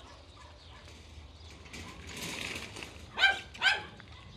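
A dog barking twice in quick succession, two short high-pitched barks about half a second apart, after a brief rustle of movement.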